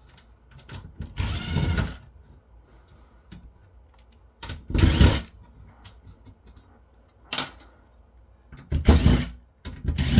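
Cordless drill/driver spinning in several short bursts as it backs out the screws holding a motherboard, with quiet handling between bursts.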